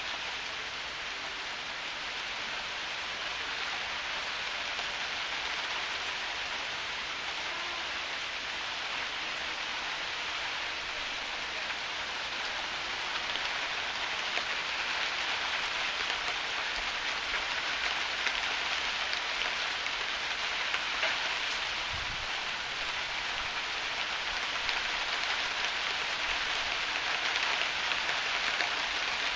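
Heavy rain falling steadily and pattering on surfaces, with a dull low thump about three-quarters of the way through.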